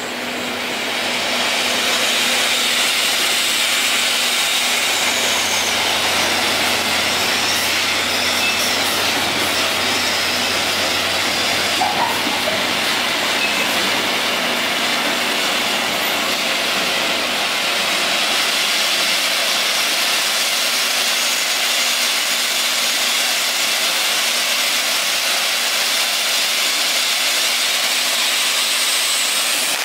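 Ground fountain firework (Broad BDFT047 'Rich Tree' yellow fountain with titanium rain) burning, with a steady loud hiss of spraying sparks. The hiss builds over the first couple of seconds and then holds, with one small crack near the middle.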